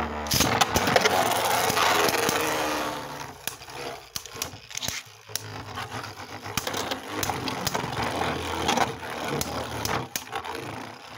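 A Beyblade spinning top launched by pulling a ripcord launcher, then two tops spinning and scraping across a plastic stadium floor. A dense scraping hiss fills the first three seconds, then sharp clacks come at scattered moments as the tops collide.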